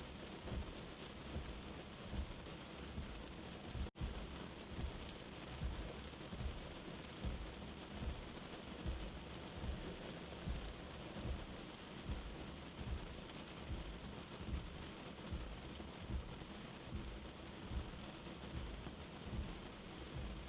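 Steady rain, with low thuds recurring about once a second. The sound drops out for an instant about four seconds in.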